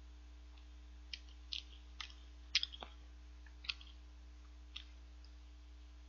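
Faint, scattered mouth clicks and smacks from eating a cream puff, about seven short ticks in the first five seconds with a louder one near the middle, over a steady low electrical hum.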